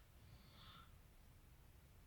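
Near silence in a pause of a sleeping man's snoring, with one faint breath out about half a second in.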